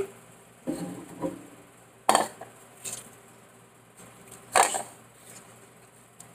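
Soapy hands being washed at a kitchen sink: a few short wet rubbing and splashing noises, the two loudest about two and four and a half seconds in.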